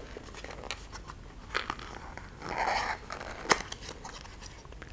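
Small cardboard box being handled and opened: a few light clicks and taps, a scraping rub of card on card a little after two seconds in, and one sharp click about three and a half seconds in.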